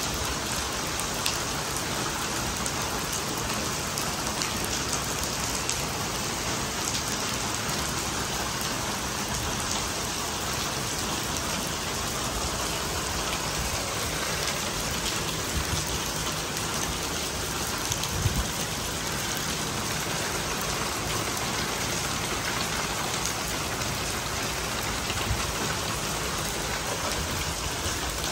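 Heavy rain falling steadily and pattering on hard surfaces, with scattered sharper drop ticks. One brief louder knock about two-thirds of the way through.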